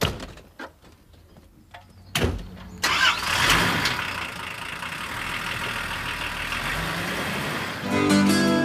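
A thump about two seconds in, then a Volvo estate car's engine starts and settles into a steady idle.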